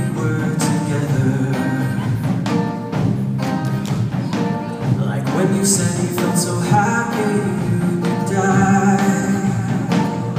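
Live band music: a man sings the lead vocal into a handheld microphone over guitar, bass and a drum kit keeping a steady beat.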